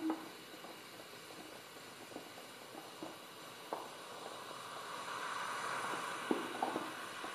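Faint background hiss with a few scattered soft clicks, the hiss swelling slightly in the second half.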